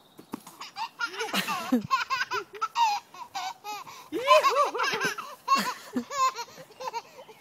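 A small child laughing in a string of short, high-pitched bursts that begin about a second in.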